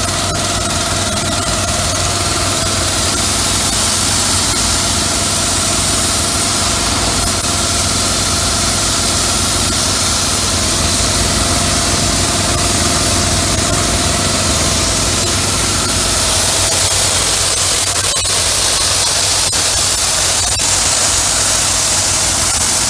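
Van-mounted hot-water pressure washer running, its Honda GX390 petrol engine driving the pump steadily under a constant hiss. A thin whining tone in the mix stops about two-thirds of the way through while the engine keeps running.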